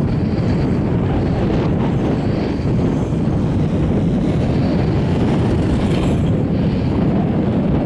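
Chairlift ride: a steady low rumble from the chair and haul rope running over a lift tower's sheave wheels, mixed with wind on the microphone.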